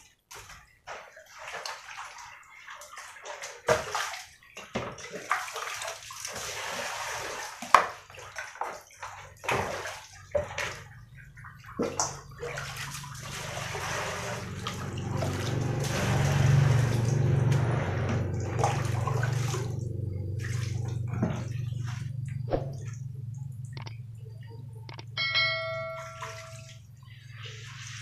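Hand washing with water: splashing and pouring from a plastic dipper into plastic basins, with knocks of plastic bowls and a wooden chopping board on concrete. The water sound grows denser and louder about halfway through. A short chime rings near the end.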